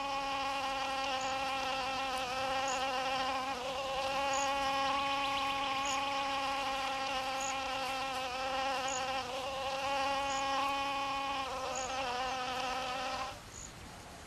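Male wasp's wings buzzing steadily as it clasps an orchid's decoy female and tries to fly off with it. The buzz wavers a little in pitch and stops about a second before the end.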